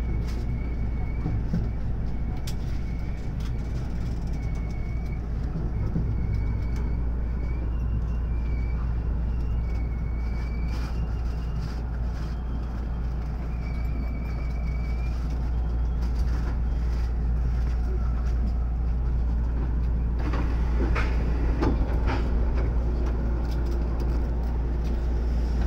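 JR West 521 series electric train heard from inside its front car, running slowly with a steady low rumble and hum as it brakes along a platform. A faint high tone comes and goes in the first half. A few knocks and short squeals come about three quarters of the way through as the train draws to a stop.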